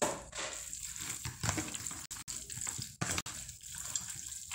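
Hand squeezing and kneading raw meat pieces in oil and spice marinade in a bowl: a wet, irregular squelching, with a few brief dropouts around the middle.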